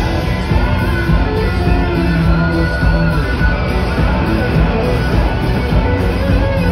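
Live pop concert music played loud over an arena sound system, recorded on a phone from the crowd, with heavy bass.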